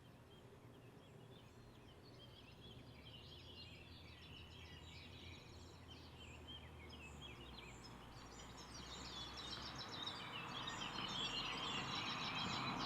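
Many small birds chirping in a dense, overlapping chorus that gets louder. A hiss-like noise swells underneath in the last few seconds.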